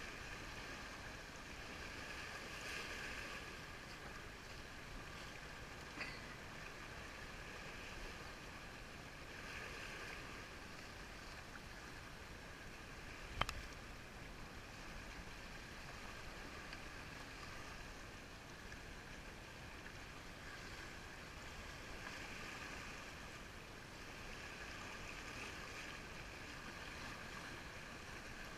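Water rushing and washing along the hull of a sailing yacht under way under sail, swelling and easing every few seconds. A single sharp tap about halfway through stands out above it.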